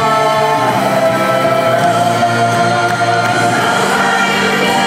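Live contemporary worship music: a woman singing lead into a microphone over the band, with many voices singing along in long held notes.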